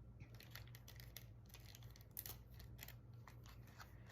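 Near silence with faint, scattered small clicks and ticks, one a little louder just past two seconds in.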